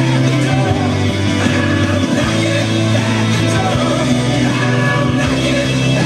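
Rock music: a full band recording with an electric guitar, a Fender Stratocaster, played along with it.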